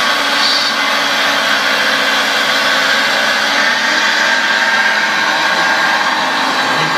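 Hydraulic pump of a radio-controlled Liebherr 960 scale excavator whining steadily as it digs and lifts a bucket of soil.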